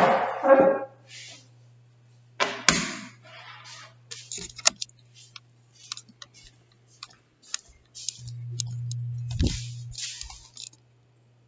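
Handling noise from a laptop computer being picked up and moved while it records: irregular clicks, knocks and bumps against its microphone, over a steady low hum, with a longer rubbing stretch and a thump near the end.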